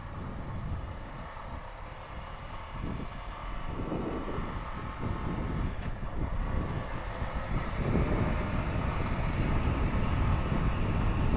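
Honda Foreman 520 ATV being ridden, its single-cylinder engine running under wind noise on the microphone, the whole sound growing steadily louder.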